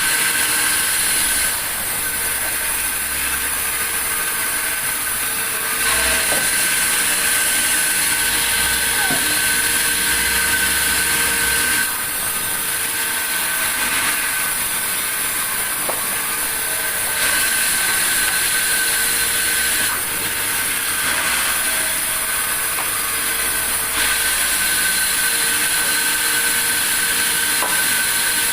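Sawmill saw running steadily, its loudness stepping up and down every few seconds.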